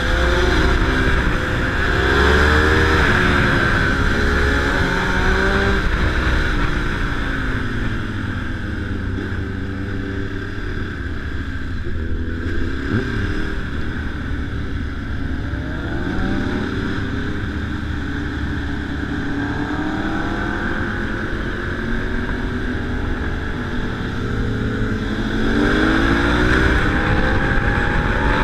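Sport motorcycle engine heard from on board, running hard and climbing in pitch several times as it accelerates through the gears, quieter while cruising in the middle stretch.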